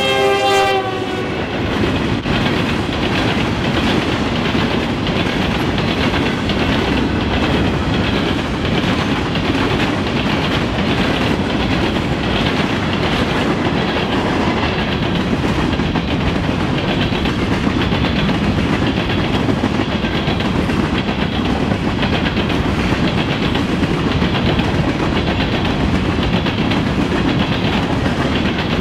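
Diesel freight locomotive horn that ends about a second in, its pitch dipping as the locomotives pass. Then a long string of covered hopper cars rolls past close by, steel wheels clacking rhythmically on the rails.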